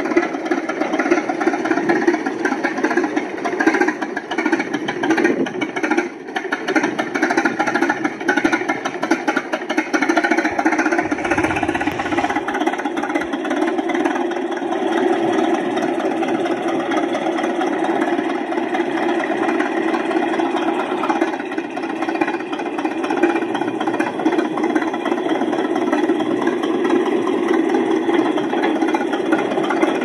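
Added sound effect of a crawler bulldozer's engine running steadily, with a brief deeper rumble about eleven seconds in.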